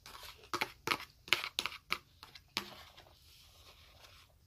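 A fork clicking and scraping against a black plastic takeout tray as food is scooped up: a quick run of about nine sharp clicks and scrapes over the first two and a half seconds.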